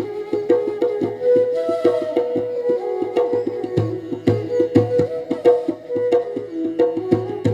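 Indian instrumental music: a held, flowing melody line over quick hand-drum strokes, with deep booming drum strokes every so often.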